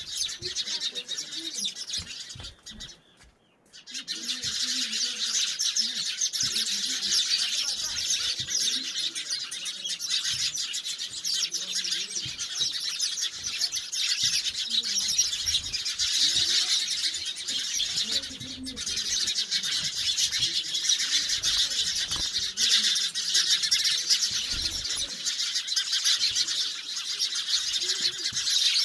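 Dense, continuous high-pitched chirping of many birds, with a brief drop to near silence about three seconds in.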